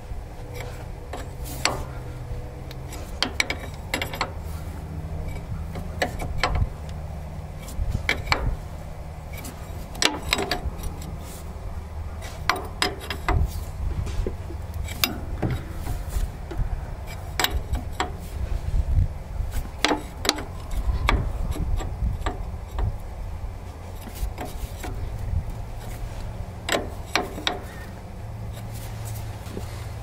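Irregular metallic clicks and clinks of a wrench being fitted to and turned on hose fittings, with the rustle of hands handling the hoses, over a low steady rumble.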